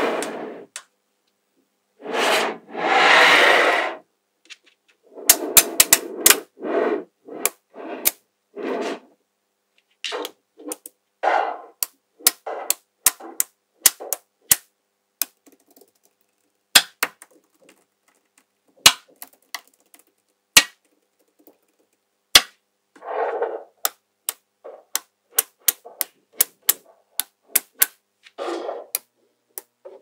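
Small magnetic balls clicking sharply as they snap onto each other, dozens of separate clicks at uneven intervals, with a few stretches of rattling a second or two long as whole sheets of balls are shifted and peeled apart.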